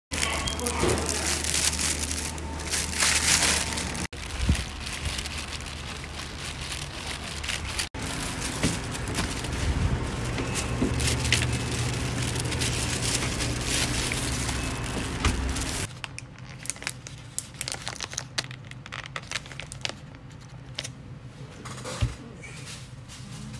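Plastic packaging and bags crinkling and rustling over a steady background hum through the first two-thirds. The last third is quieter, with sharp, irregular crinkles of a takeout bag being rummaged through.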